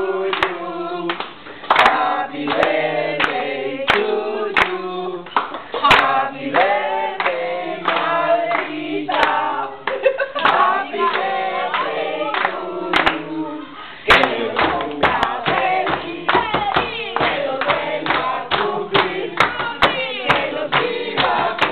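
A group of people singing a birthday song together and clapping along. About two-thirds of the way in, the clapping becomes faster and denser.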